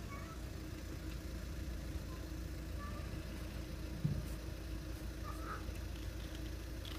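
Steady low hum of an idling vehicle engine, with a few faint high chirps and one dull thump about four seconds in.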